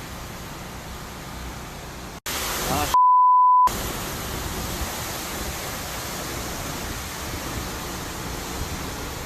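Steady rush of hurricane wind on the microphone. About two seconds in, the sound cuts out for an instant, a louder gust with a brief voice follows, then a pure, steady censor bleep lasts under a second before the wind noise returns.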